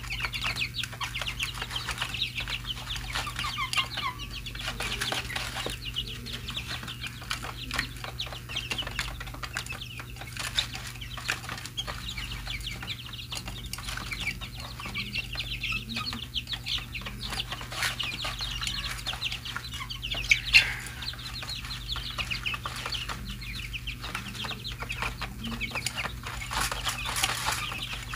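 A flock of 23-day-old chicks cheeping continuously in a dense chorus of short high calls while they peck at grain in a plastic feed tray, with many small clicks of beaks on the tray.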